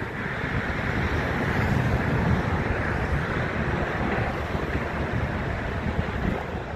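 Wind buffeting the phone's microphone, a steady gusty rumble and hiss with no clear engine note.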